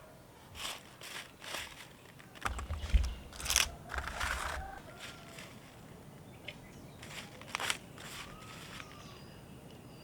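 A series of short crisp snaps and crunches, with a heavier thud and a denser cluster of snaps from about two and a half to four and a half seconds in, and two more snaps near the end.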